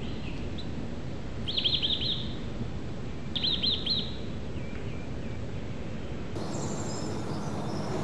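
A small songbird singing two short phrases of quick, high, falling notes about two seconds apart, over a steady low background rumble.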